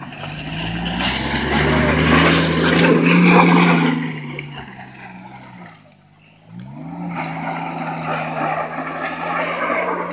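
Maruti Suzuki Omni van's small three-cylinder petrol engine pulling under load up a muddy track, loudest as the van passes close. About six seconds in the engine note drops away briefly, then rises again and runs steadily as the van draws off.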